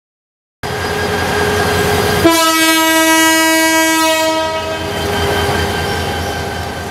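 Train noise starts abruptly. About two seconds in, a diesel locomotive's horn blows one steady note for about two seconds, over the continuing rumble of the train.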